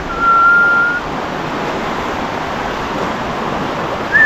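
A person whistling one steady held note for about a second, then only the steady rush of river water.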